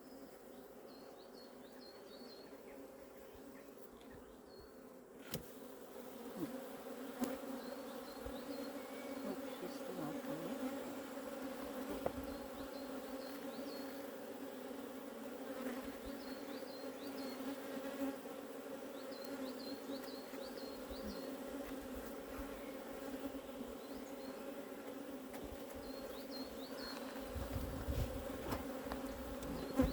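Honeybee colony buzzing at an open hive, a steady hum that grows louder about five seconds in, just after a sharp click.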